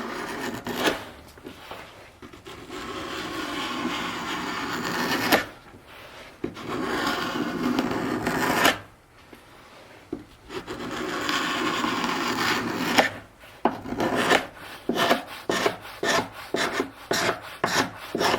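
Handled wood scraper, sharpened like a card scraper, scraping old finish off the chair's wooden parts down to bare wood. Four long drawn strokes, then near the end a run of short quick strokes, about two a second.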